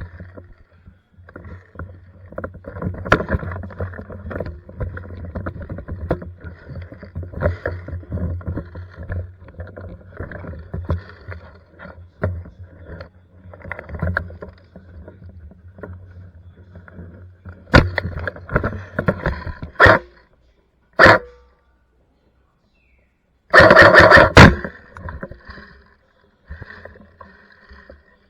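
Airsoft electric gun firing short full-auto bursts, the loudest about two thirds of the way through, amid rustling of gear and movement.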